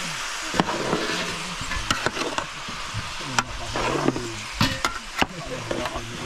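Food sizzling as it fries and is stirred, with a steady hiss and sharp knocks from the stirring utensil hitting the pot, several times.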